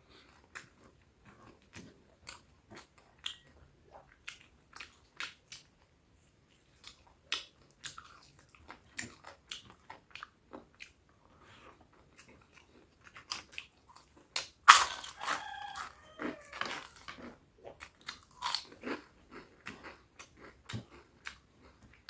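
A person eating close to the microphone: irregular crunchy bites, chewing and wet mouth clicks. The loudest crunch comes about two-thirds of the way through.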